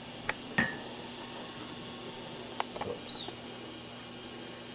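A few light clinks and taps of glass and utensils, one in the first second ringing briefly like struck glassware, then a small cluster about three seconds in, over a faint low steady hum.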